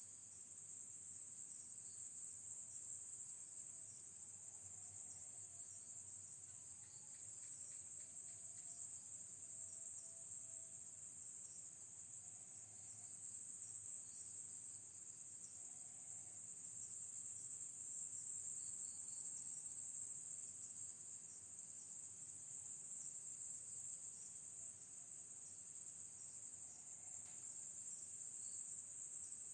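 Crickets chirring in a steady high-pitched drone, with faint short lower calls now and then.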